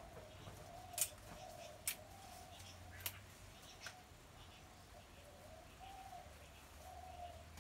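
Okra pods being snapped by hand into pieces over a clay pot: four sharp clicks about a second apart in the first four seconds. A steady, wavering low tone runs underneath.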